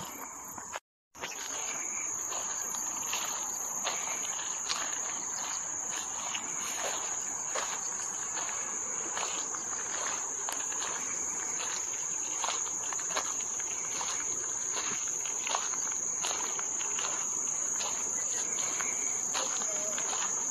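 Insects chirring in one steady high-pitched drone, with the walker's footsteps on the path about every three-quarters of a second. The sound drops out briefly about a second in.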